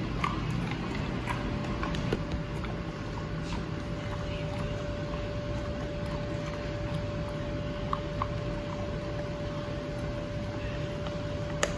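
A steady hum over low room noise, with scattered faint clicks and ticks as a large dog takes and chews a treat and steps on a hard laminate floor. A sharper click comes near the end.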